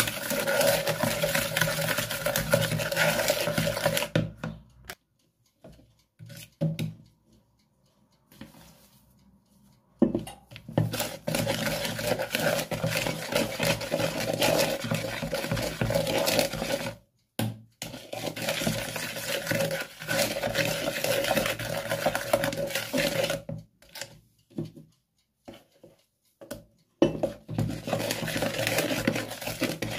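Electric hand mixer whirring as its beaters work an egg mixture in a plastic bowl, with the beaters rattling against the bowl. It stops about four seconds in, starts again around ten seconds, and pauses briefly twice more.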